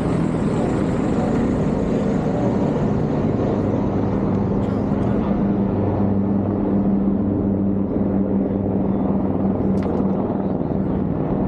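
Ferry's engine running with a steady low drone, under a constant rush of noise.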